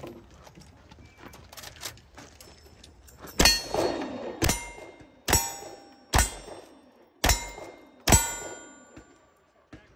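Six shots from a lever-action rifle firing .45 Colt handloads, about a second apart and starting a few seconds in, each followed by the clang and ring of a struck steel target.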